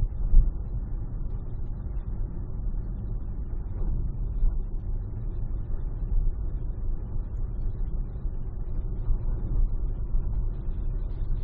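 Steady low rumble of a car driving at freeway speed, tyre and road noise with the engine underneath, heard from inside the cabin.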